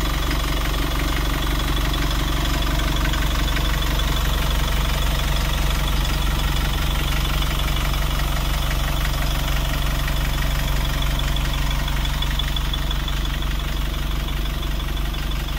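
ADL Enviro200 bus's rear-mounted diesel engine idling steadily, heard close up through the open engine bay.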